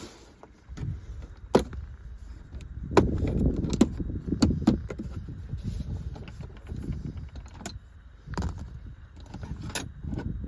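Metal tools clinking and being handled: a run of sharp clicks and clanks, about eight of them, over low rustling and rumbling handling noise that grows louder about three seconds in.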